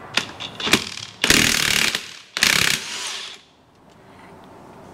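Cordless impact wrench hammering in two short bursts, about a second in and again near three seconds, spinning off the 27 mm clutch hub nut of a Beta 200 RR two-stroke engine. A couple of light clicks come before the first burst.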